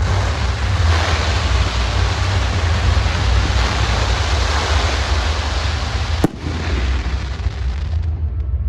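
A firework hissing steadily for about eight seconds, with one sharp bang about six seconds in.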